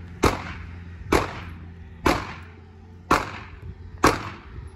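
Five pistol shots from a .40-calibre Glock handgun, evenly paced about one a second, each a sharp crack with a short echo trailing off.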